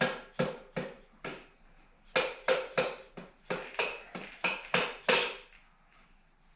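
Hammer striking a metal bolt to drive it out of the motorcycle's frame and engine: sharp, ringing metal-on-metal blows, about three a second. There are four blows, a short pause, then a longer run that stops about five seconds in.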